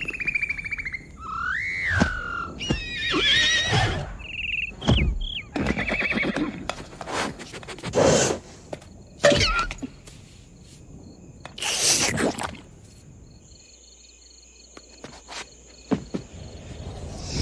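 A winged horse from animated-film sound effects, whinnying and snorting among a run of short whooshes. High gliding cries come near the start.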